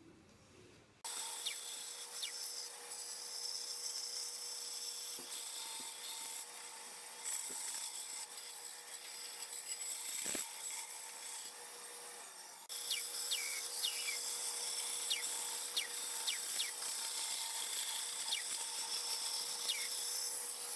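A band saw cuts a circle out of a thin wooden crate board: the motor hums steadily while the blade saws through the wood. It starts about a second in and changes abruptly around the middle. In the second half it is louder, with a string of short high squeaks.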